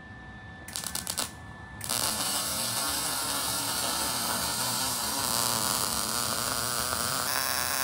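MIG welder arc welding a Panhard bar to its threaded adjuster sleeve: a few brief crackles as the arc is struck about a second in, then a steady crackling arc from about two seconds in.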